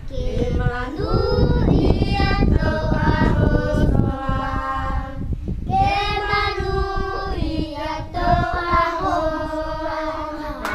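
A group of children and women singing a song together.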